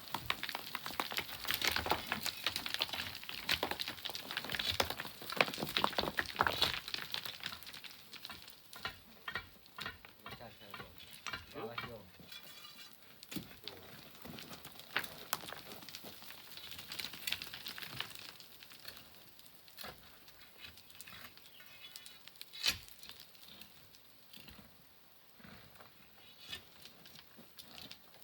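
Sand and pebbles trickling and clattering down a mine face. For the first seven seconds or so there is a dense rush of small clicks, which then thins to scattered ticks and little clatters. About 23 seconds in there is one sharper knock.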